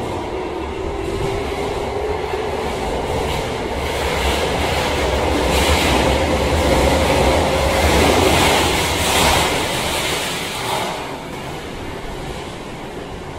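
Electric subway train running past a station platform, with a steady tone over dense rail rumble, loudest about two-thirds of the way through. The sound falls away after about ten seconds as the train clears the platform.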